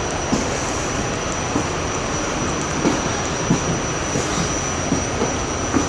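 New York City subway train running: a steady rush of rumble and rattle with a thin high whine and a few light knocks.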